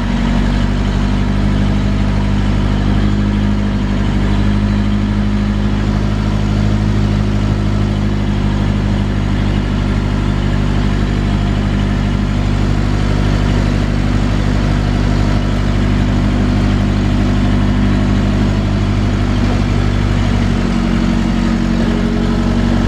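JCB backhoe loader's diesel engine running steadily, its note shifting about three-quarters of the way through.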